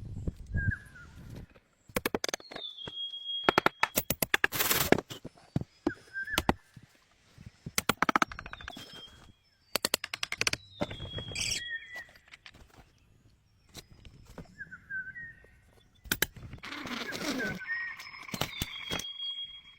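Short runs of rapid, sharp knocks, many to the second, like tool blows on wood. Between them a bird's falling whistled call and a short chirp repeat every few seconds.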